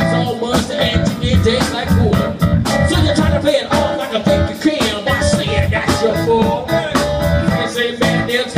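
Live band playing: electric guitar, drum kit and keyboard, with a steady drum beat.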